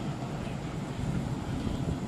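Distant city traffic heard from high above: a steady rumble of engines, among them motorcycles with loud aftermarket exhausts.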